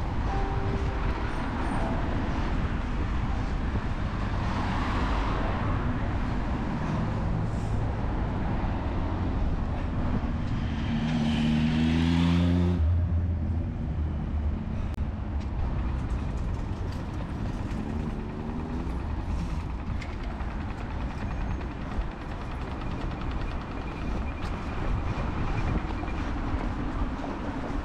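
Street traffic: a steady low rumble and hiss of motor vehicles. One vehicle passes close about twelve seconds in, its engine note rising as it goes by; this is the loudest moment.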